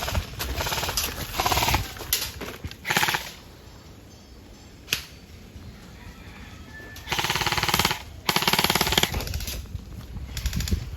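Airsoft guns firing several full-auto bursts of rapid clicks, the two longest bursts coming late.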